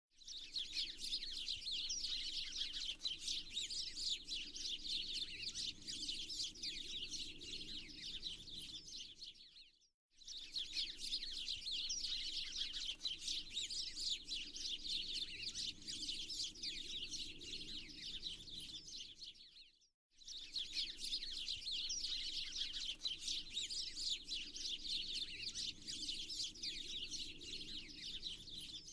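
Dense chorus of many small birds chirping rapidly over a soft low background noise. The recording fades out and restarts about every ten seconds, as a loop.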